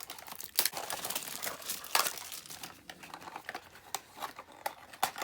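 Blind-box toy packaging crinkling and tearing as it is opened by hand, with many sharp little clicks and crackles.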